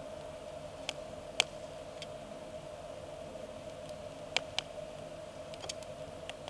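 Wood campfire crackling: scattered sharp pops and snaps, about half a dozen, over a steady faint drone.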